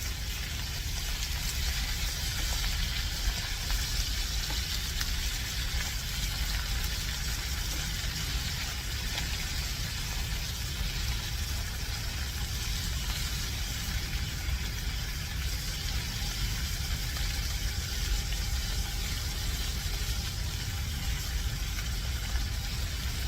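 Dried fish frying in hot oil in a pan, a steady sizzle over a steady low rumble.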